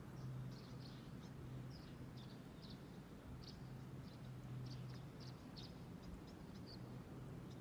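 Faint chirping of small birds: many short, high calls in quick succession. Underneath, a low hum comes and goes.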